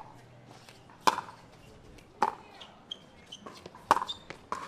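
Pickleball rally: paddles hitting the plastic ball back and forth, with four sharp pops spaced about a second apart.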